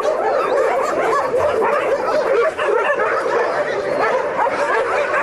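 A pack of about fifty shelter dogs barking and yelping all at once, many voices overlapping in a dense, unbroken chorus: excited greeting barks as they are let out to meet people.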